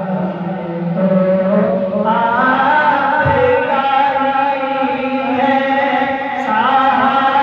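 A man's solo voice singing a naat, Islamic devotional poetry, into a microphone with no instruments, in long held notes that waver and glide in pitch.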